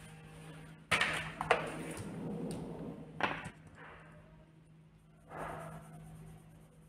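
Hands handling coloured pencils and paper cards on a tabletop: a sudden knock about a second in, a couple of seconds of rustling with a sharp click, then a brief scratch of pencil on paper.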